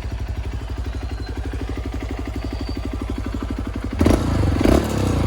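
Honda CRF150L single-cylinder engine idling through an Exos X6 exhaust with its silencer insert removed, in a steady, even beat. About four seconds in it is revved briefly and gets much louder.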